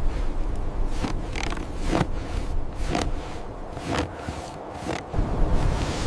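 A steady low rumble with a series of short scraping or crunching noises, roughly one a second.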